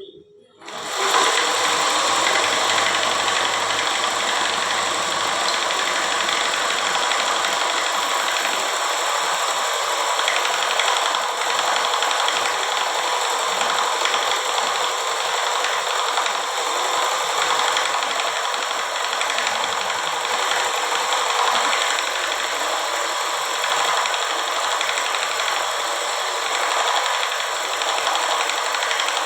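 A homemade scroll saw running steadily, its motor and reciprocating blade mechanism giving a loud, even mechanical rattle that starts abruptly about half a second in.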